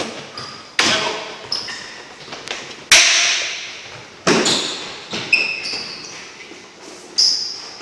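Athletic shoes landing and pushing off on a hard gym floor during sprints and jumps: heavy footfall thuds with short high sneaker-sole squeaks, echoing in a large hall. The loudest landings come about a second in, at three and four seconds, and near the end.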